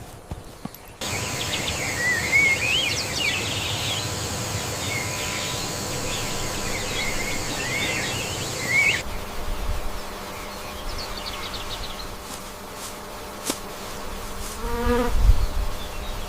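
Insects buzzing with a steady high drone, over short chirping calls, cutting off abruptly after about eight seconds. A quieter stretch follows, with a short pitched animal call near the end.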